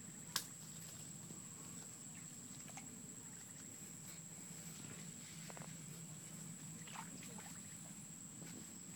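A sharp snap about a third of a second in, then a few faint crackles of leaves and stems as a cluster of small berries is picked from a branch by hand. A steady high-pitched whine runs underneath.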